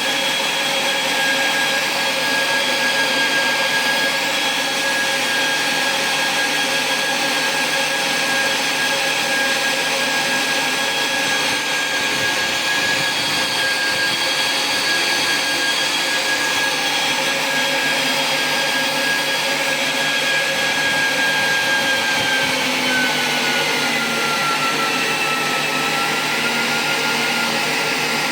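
A motor in a Siemens medical device runs steadily on test after its circuit board was repaired, giving a steady high whine over a rushing noise. About 23 seconds in the whine drops a little in pitch and then holds.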